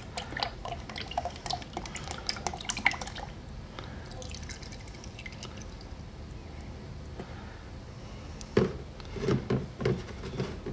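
Automatic transmission fluid glugging and trickling out of a plastic quart bottle into a plastic funnel for the first few seconds, tapering to drips as the bottle empties. A few louder knocks come near the end.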